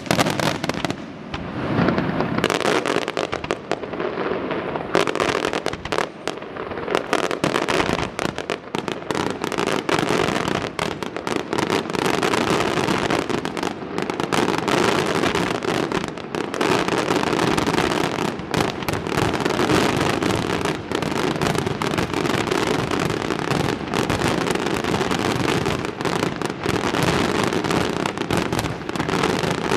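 Aerial fireworks display: a dense, continuous barrage of shell bursts, bangs and crackle with no letup.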